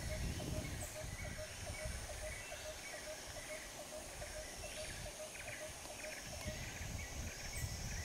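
Bush ambience of animal calls: a regular run of short, clipped calls, about four to five a second, stops about six and a half seconds in. Scattered higher chirps and a faint high steady buzz sit over a low rumble.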